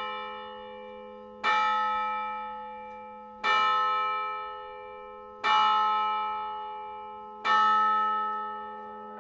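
A church bell tolls slowly as a funeral knell over a steady low drone note. It strikes four times about two seconds apart, and each stroke rings out and fades before the next.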